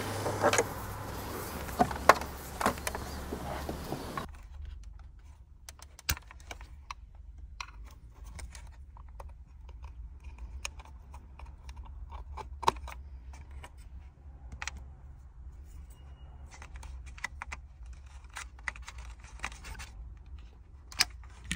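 Plastic wiring-harness plugs being handled and pushed into the back of a car head-unit display: scattered light plastic clicks and rattles. A steady hiss in the first few seconds cuts off suddenly about four seconds in.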